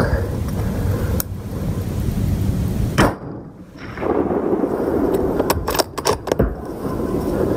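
A rifle shot about three seconds in, then a quick run of sharp metallic clicks a couple of seconds later, over a steady low rumble; a fainter crack comes about a second in.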